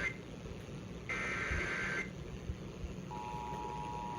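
An Emergency Alert System SAME header: a burst of raspy two-pitch digital data tones about a second long. About a second after it, the steady two-tone EAS attention signal starts and holds, announcing the next warning.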